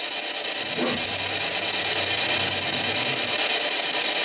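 PSB7 spirit box sweeping the radio band: a loud, steady hiss of static with a brief snatch of pitched radio sound about a second in.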